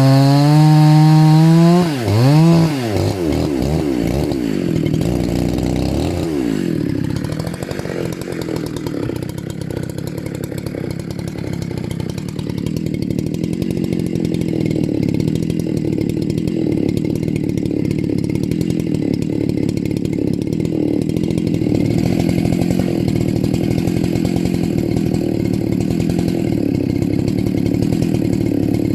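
Dolmar PS-9010 90cc two-stroke chainsaw running at high revs. About two seconds in the throttle is released, and the engine note drops and swoops up and down with a few throttle blips. It then settles into a steady idle.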